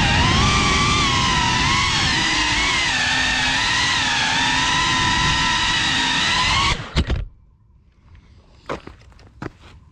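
FPV racing quadcopter's motors whining, the pitch wavering up and down with the throttle, then cutting off suddenly about seven seconds in as the drone sets down. A few light clicks and knocks follow.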